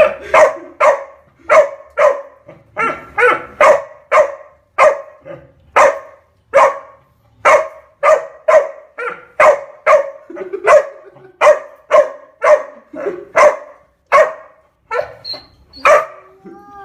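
A dog barking over and over in an even rhythm, a little under two short, sharp barks a second.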